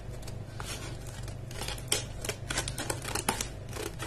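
Scissors cutting through a stiff clear plastic blister pack, with a run of irregular sharp snips and plastic crackles.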